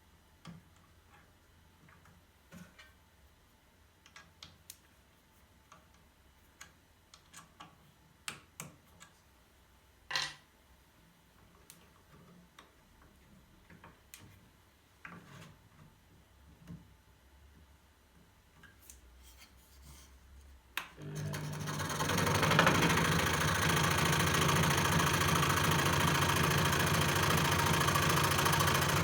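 Scattered light clicks and taps of handling, then about 21 seconds in a scroll saw switches on and runs steadily with a low motor hum and the buzz of the reciprocating blade.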